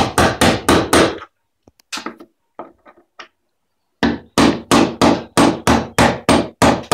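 A hammer striking the end of a flathead screwdriver in quick, even blows, about four a second, chipping old paint out of the slots of sash-pulley screws. A run of blows comes first, then a pause with a few lighter taps, then a second steady run.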